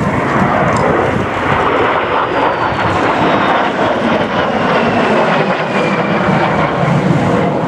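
De Havilland Vampire jets passing, the steady jet noise of their Goblin turbojets with a faint high whine that slides down in pitch as they go by.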